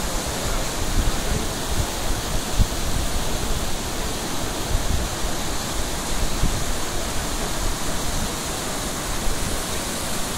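Floodwater pouring over the crest of a long low dam, a steady rushing cascade of white water.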